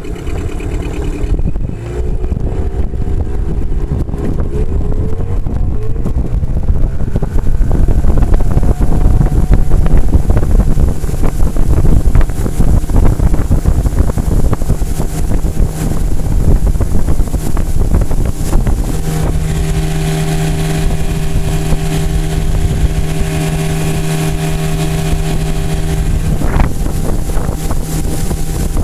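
8 hp outboard motor pushing a small Gheenoe canoe across the water, with a heavy rush of wind and water. The engine note climbs in the first few seconds as the boat speeds up. From about two-thirds of the way through, a steady engine whine stands out.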